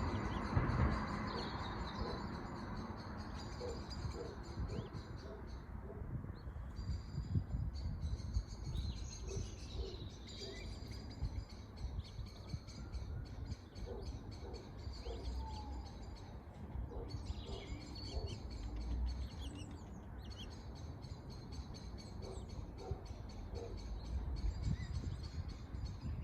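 Birds at a nest on water calling with repeated short chirps, over a steady low rumble.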